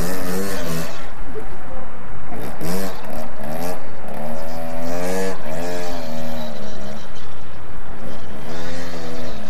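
Small dirt bike engine revving up and down several times as the rear wheel spins in wet grass, throwing up spray.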